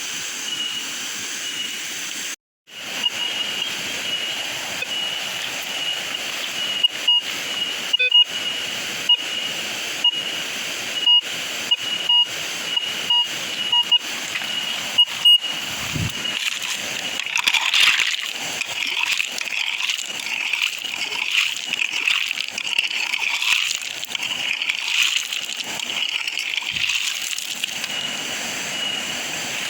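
Running water of a shallow stream, with a metal detector's steady high tone and short repeated beeps over it.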